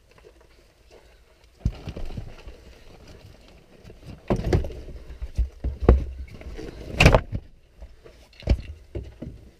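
Backpacks and trekking poles being loaded into a car's cargo area: a run of thumps, knocks and rustling, with the loudest, sharpest knock about seven seconds in.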